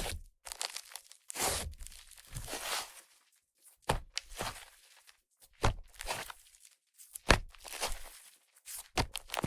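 Clay-and-butter slime made with Yoda clay being squished and pressed by hand, giving repeated bursts of fizzy, sizzling crackle as trapped air squeezes out, about one every second or two.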